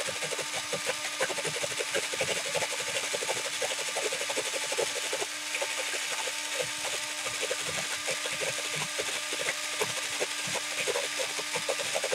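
Pencil being sharpened: continuous rapid scraping and clicking over a steady hum.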